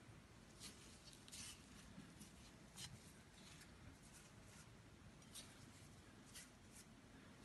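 Faint, irregular dry rustling and crackling of shredded kunafa (kataifi) dough strands as a hand in a plastic glove presses and spreads them in a pan, a few scratchy rustles at a time.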